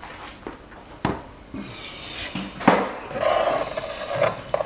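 A spatula stirring thick tomato gravy in a cast-iron pot, scraping and rubbing along the pot, with a couple of sharp knocks against it about one second and about two and a half seconds in.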